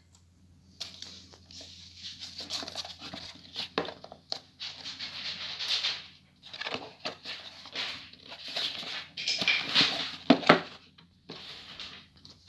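Cardboard box handled by hand, its inner box sliding against the sleeve: irregular scraping and rubbing with a few sharp taps.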